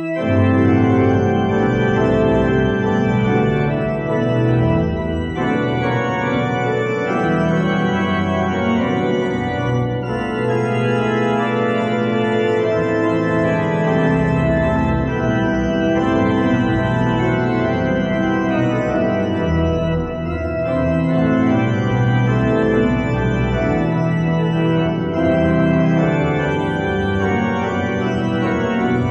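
The grand pipe organ of Chartres Cathedral playing an improvised variation in loud, full, sustained chords over a deep pedal bass, starting abruptly at full volume.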